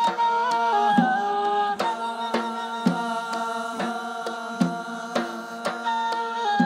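Hadrami zarbadi music: a held melody that steps from note to note, over strokes on a large double-headed drum coming every half second to a second.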